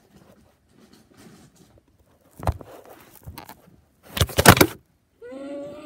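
Handling noise as a phone that is recording is knocked over and falls down beside a bed: faint rustling, a sharp knock about two and a half seconds in, then a louder cluster of bumps and scrapes around four seconds in. Near the end a person's voice starts a drawn-out cry.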